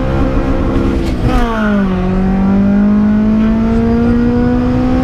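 Modified Honda Civic's 1.5-litre D15 VTEC four-cylinder pulling hard under acceleration, heard from inside the cabin. About a second in, the pitch drops sharply as it shifts up, then it climbs steadily again. It breathes through an aftermarket header and a straight 63.5 mm stainless exhaust with only a Vibrant rear silencer.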